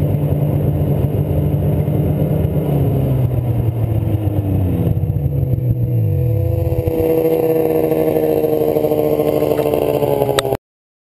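Ski-Doo snowmobile engine heard from the rider's helmet as the sled rolls in and slows down. The engine pitch falls between about four and seven seconds in, then it runs at a lower, lighter pace until the sound cuts off suddenly near the end.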